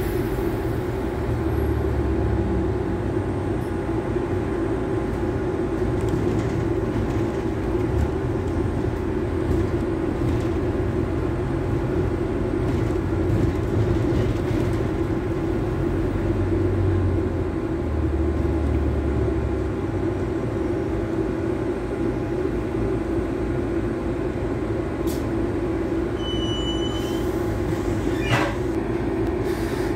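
A double-decker bus driving along, heard from inside on the upper deck: a steady engine drone with a low rumble that swells and eases. Near the end come a short high beep and a single sharp knock.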